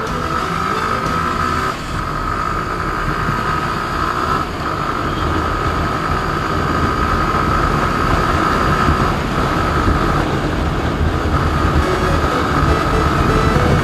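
Motorcycle engine running under acceleration, with road and wind noise on the rider's camera. The steady engine tone drops out briefly a few times, and the whole sound grows gradually louder as speed builds.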